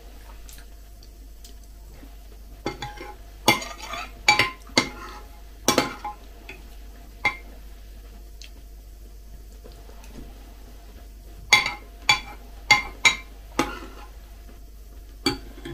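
Metal spoon clinking and scraping against a ceramic bowl of cereal flakes in milk while eating: about a dozen sharp clinks at irregular intervals, some with a short ring.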